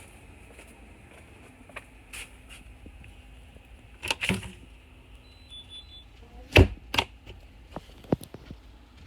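Irregular clicks and knocks, with a heavy thump about two-thirds of the way through, from doors or windows being worked during an alarm walk test. Faint short high beeps from the Honeywell Vista 20P keypad come about halfway through.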